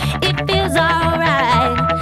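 Background music: a melody with wavering notes over a steady bass.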